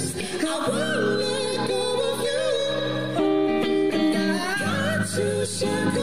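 Live acoustic music: male voices singing high, with vibrato, over a strummed rhythm guitar.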